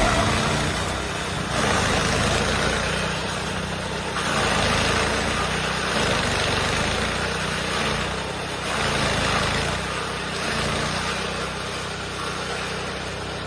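Chaff cutter driven by a 7.5 HP petrol engine, running steadily: a continuous low engine hum with louder, hissing stretches a few seconds long that come and go.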